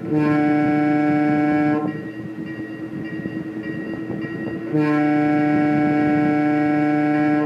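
Toy train's horn sounding two long blasts of about two seconds each, one near the start and one from about two-thirds of the way through. Each blast is a single steady note, with the rumble of the train running on its track in between.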